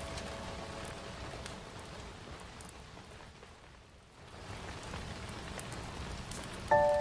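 Steady hiss of rain ambience that fades to its quietest about four seconds in and then swells back, with a few faint ticks; a held musical note dies away in the first second.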